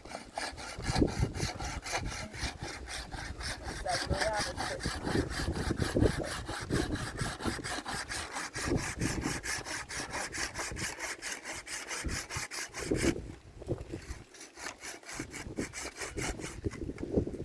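Fast, even rhythmic scraping or rubbing, about five strokes a second, keeping a steady pace throughout.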